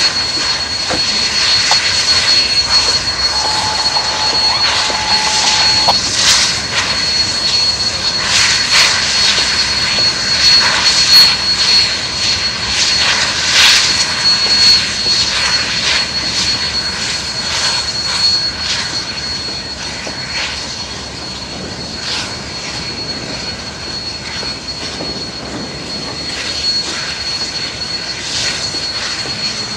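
Steady, loud running noise of idling locomotives, with a thin high whine held throughout. Short sharp sounds come and go through the first half, and a brief steady tone sounds from about three to six seconds in.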